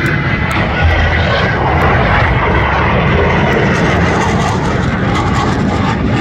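Jet noise from a Blue Angels F/A-18 Super Hornet, its twin turbofan engines running as it flies past during an airshow solo pass: a loud, continuous noise.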